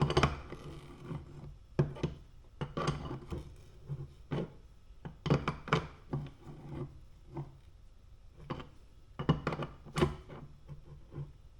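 A hand wrench works on the fuel pressure damper fitting of a fuel rail as it is tightened down: irregular metal clicks and scrapes as the wrench is set and turned, a few of them sharp, the loudest near the end.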